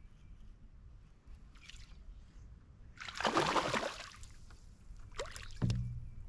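A hooked bass splashing and thrashing at the water's surface for about a second as it is reeled in to the boat, followed near the end by a few lighter clicks and a short knock.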